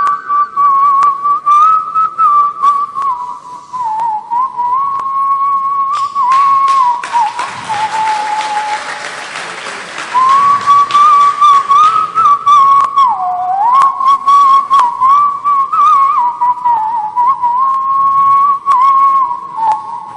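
A man whistling a warbling, trilling melody into a stage microphone. The pitch wavers around one steady register with quick ornaments. A burst of audience applause rises about six seconds in and covers the whistling, which breaks off briefly and resumes about halfway through.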